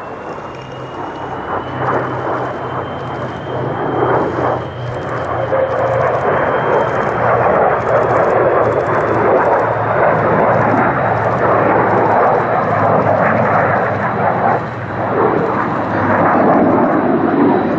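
A formation of three P-51 Mustangs and an F-22 Raptor flying past: a low, steady drone from the Mustangs' V-12 piston engines mixed with the jet's dense engine noise, growing louder over the first few seconds. A thin high whine rises slowly in pitch throughout.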